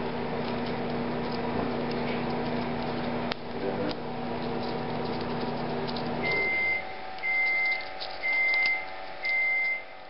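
A household appliance hums steadily with a few sharp clicks over it. About six seconds in the hum stops and the appliance gives four identical high electronic beeps, about a second apart, the pattern of a machine signalling that its cycle is done.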